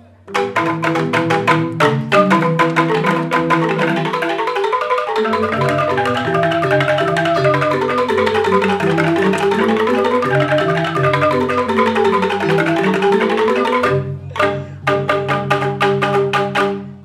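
Balinese bamboo gamelan of the joged bungbung kind playing a fast tabuh: many tuned bamboo xylophones struck in quick interlocking patterns. The ensemble comes in just after the start, breaks off briefly near the end, then returns with strong accented beats before dropping away.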